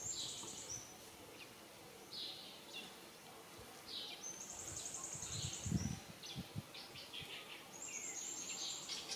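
Birds chirping in short high-pitched phrases, with rapid trills at the start, about halfway through and near the end. A single dull low thump sounds a little past the middle.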